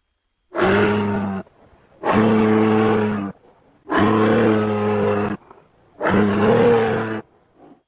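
Four low roars of a made-up Tarchia (ankylosaur) creature sound effect, each about a second long, with short gaps between. Each one starts and cuts off abruptly.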